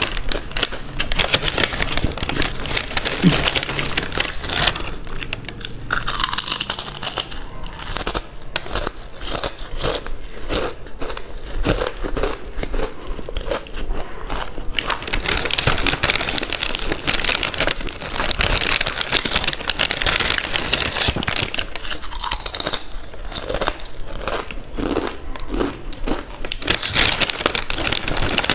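Close-up crunching, biting and chewing of Balaji crisps, with plastic snack packets crinkling and tearing.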